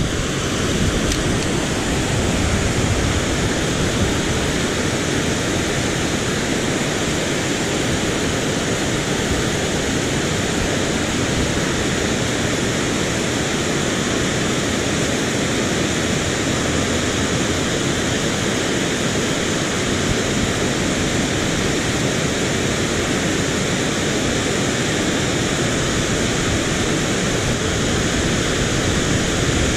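Steady, even rush of flowing water, loud and unbroken.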